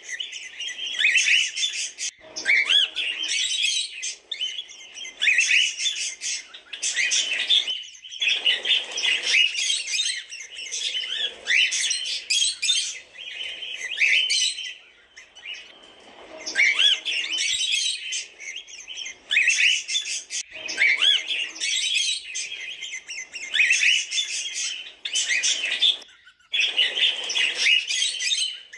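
Cockatiels chirping almost without a break, a run of quick rising whistled notes with short pauses every few seconds.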